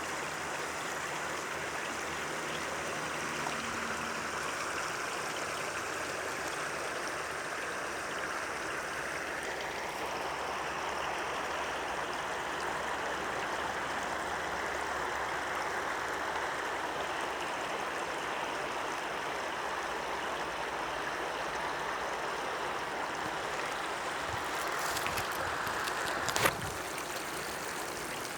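Small stream babbling and trickling steadily over stones. A single sharp click sounds about two seconds before the end.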